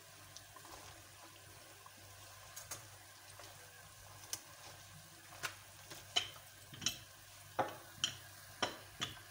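Namak pare dough pieces deep-frying in hot oil in a karahi with a faint, steady sizzle while a wire skimmer stirs them, nearly done and turning golden brown. Sharp clicks and taps come through, a few at first and then about two a second over the last few seconds.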